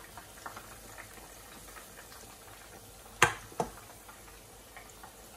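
Pork meatballs deep-frying in a pot of oil, a faint steady sizzle with scattered small pops. A little past the middle come two sharp clicks about a third of a second apart.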